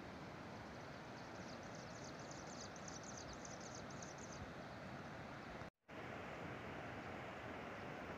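Steady outdoor rush of wind on the microphone, with a rapid, high chirping trill from about a second and a half in, lasting about three seconds. The sound cuts out completely for a moment about two-thirds of the way through.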